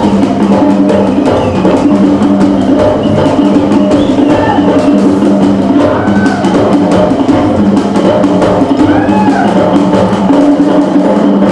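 Loud music driven by fast, dense drumming, with pitched parts running steadily underneath.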